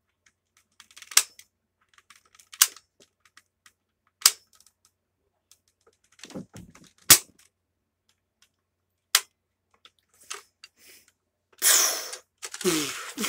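A toy gun firing about six sharp shots, each a second or two apart, the loudest about seven seconds in. Near the end comes a longer rush of noise.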